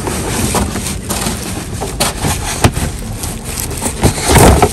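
Cardboard box flaps being pushed and rubbed against the plastic housing of a hose reel, with scattered sharp clicks and knocks and a louder scraping thump near the end.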